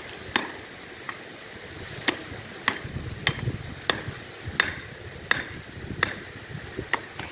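Pick striking stony soil and rock in short, quick blows: a series of sharp knocks, roughly one every two-thirds of a second.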